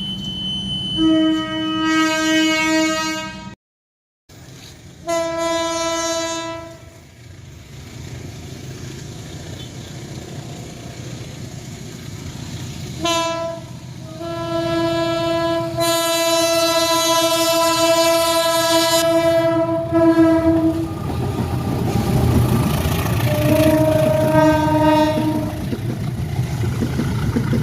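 Indonesian train horn sounding the semboyan 35 horn signal in repeated single-pitched blasts: two of about two seconds, then a short toot followed by one long blast of about seven seconds, then two short blasts near the end. The rumble of a running train lies beneath and grows heavier toward the end.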